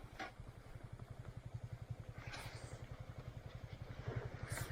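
Single-cylinder motorcycle engine idling with a steady, even low putter. A few faint clicks sound over it.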